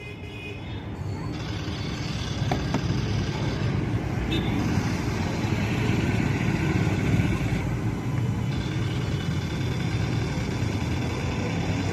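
A steady engine running, getting louder over the first couple of seconds and then holding at a constant level.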